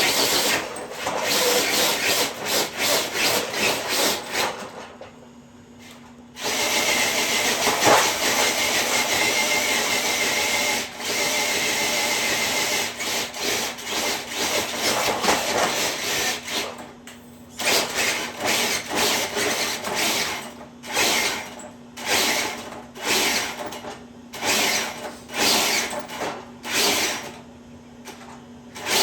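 Electric RC truck's motor and drivetrain whining under load while pulling a dead-weight sled. It runs in short throttle pulses, then in one long run of about ten seconds, then in quick on-off bursts.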